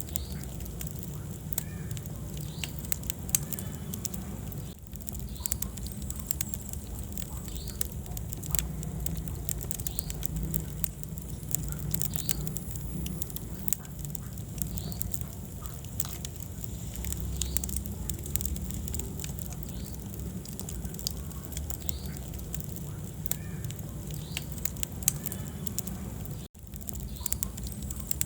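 Wood fire burning in a fireplace: frequent sharp crackles and pops over a low rumble of flames. The sound drops out for an instant near the end.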